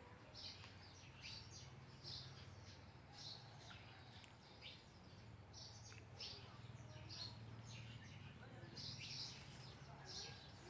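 Faint, irregular high bird chirps, several a second, over a low steady hum.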